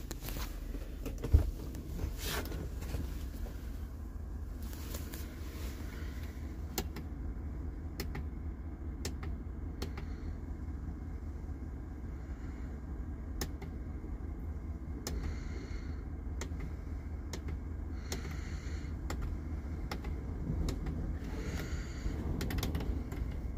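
Chevrolet Tahoe's 5.3 L V8 idling steadily at about 700 rpm, heard from inside the cabin as a low rumble. A single sharp knock comes about a second in, and faint light clicks are scattered through.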